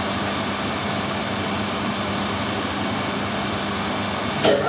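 Metal lathe running steadily at about 2000 RPM, spinning a milling-machine spindle with freshly pressed-on bearings in its chuck: an even machine noise with a constant hum and no roughness or whine from the bearings, which run smooth. Near the end there is a click and a short rising tone.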